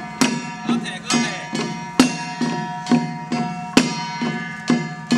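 Traditional temple percussion: hand drums and metal instruments beating a steady rhythm of about two and a half strokes a second over a sustained metallic ringing. A ritual rope whip (fa suo) gives sharp cracks about two seconds in and again near four seconds.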